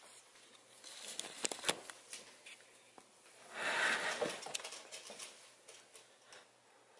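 Light taps and scuffles on a wooden floor as a British Shorthair cat jumps at a Cat Dancer wire wand toy, with a brief rushing swish about four seconds in, around its leap.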